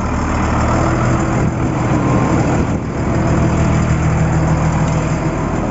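Caterpillar 950G wheel loader's diesel engine running steadily, its revs stepping up slightly just after the start and again about three seconds in, as the machine is tried against its newly fitted parking brake to see whether it holds.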